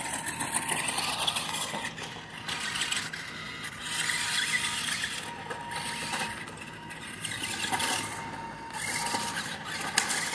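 Toy RC monster truck's electric drive motor and gears whirring in a string of throttle bursts as it drives and spins on grass, with a sharp click near the end.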